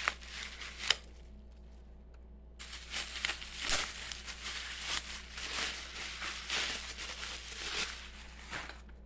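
Plastic bubble wrap being crinkled and pulled off a wrapped item: a few crackles at first, a short lull, then about six seconds of steady crinkling.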